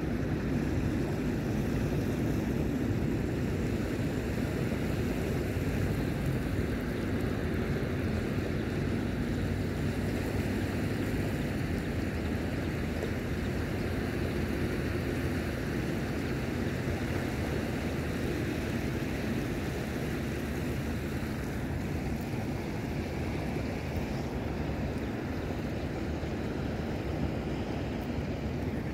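Steady wind rumbling on the microphone over the wash of small sea waves at the shore.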